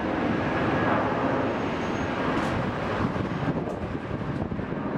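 Airbus A320-200 jet engines at takeoff thrust during the takeoff roll: a steady noisy rumble, loudest about a second in, with wind buffeting the microphone.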